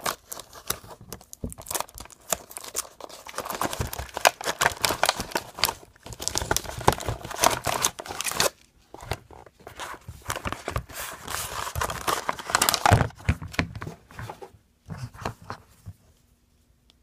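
Toy packaging being torn open and crinkled by hand, in irregular spells of ripping and rustling.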